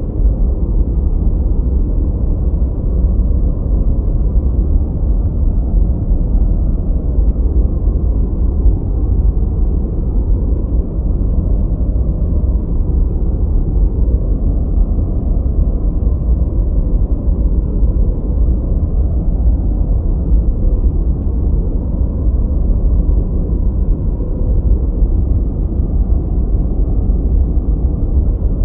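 Continuous deep, muffled noise track, even and unchanging, with its weight in the low end and almost nothing in the highs.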